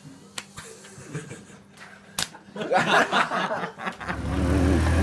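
A few sharp smacks, then a burst of laughter about halfway through. In the last second an engine comes in, running low and steady.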